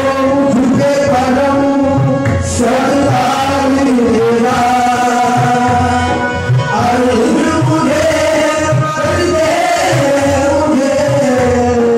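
A qawwali group of men singing together to harmonium accompaniment, long held and gliding sung lines over a steady low beat.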